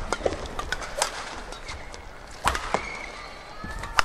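Badminton rally: rackets striking the shuttlecock in sharp cracks, the loudest about every second and a half, with shoes squeaking on the court mat between shots.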